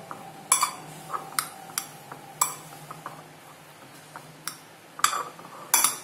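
Irregular sharp clinks and taps of a ceramic plate as rice is mixed into mango pulp by hand in it, the loudest cluster near the end, over a faint steady hum.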